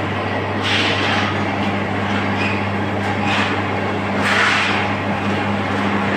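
Rolling mill machinery running: a steady low hum under a continuous noisy industrial din, which swells briefly about a second in, again past three seconds, and again past four seconds.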